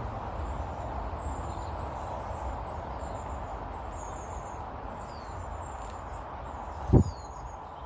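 Faint, high, short bird chirps and a few quick falling notes over a steady outdoor background hiss, with one brief low thump about seven seconds in.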